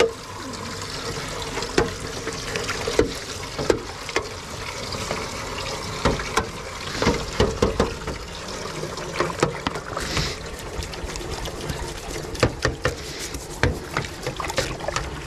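Shire horse drinking from a metal water trough: irregular slurps, splashes and knocks of water in the trough.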